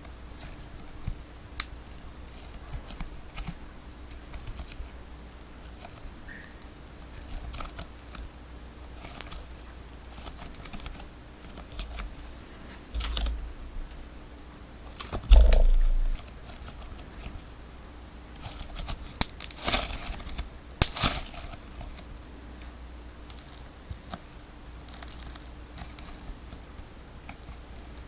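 Tape ball being cut open and its layers of sticky tape pulled apart: scattered snips, crackly tearing and crinkling, with a loud thump about halfway through and a denser run of crackly tearing a little later.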